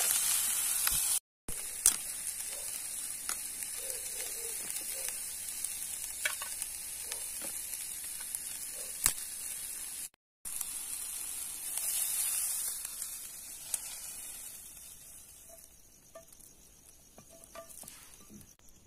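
Diced eggplant and onion frying in oil in a nonstick frying pan: a steady high sizzle with a few sharp clicks, broken twice by short silent gaps. Over the last few seconds the sizzle dies away as the pan comes off the embers.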